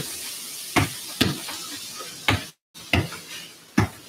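A football being kicked against a wall: sharp, separate thuds of the foot striking the ball and the ball hitting the wall, about six in four seconds, over a faint hiss.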